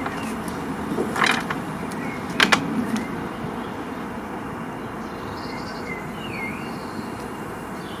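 E-bike wiring being handled and plugged into the controller: a few short clicks and rustles of plastic connectors and cables in the first three seconds, over steady background noise.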